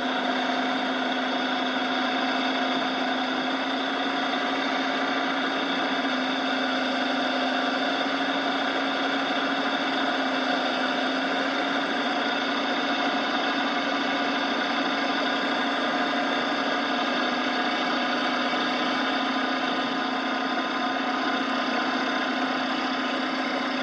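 Inside the cabin of a 2014 Dodge Charger Pursuit, its 5.7L HEMI V8 and drivetrain run with a steady hum and a steady droning tone that holds the same pitch throughout.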